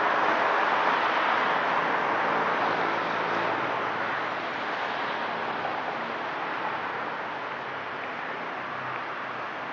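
Steady rush of road traffic, an even noise with no distinct engine or horn, slowly growing quieter.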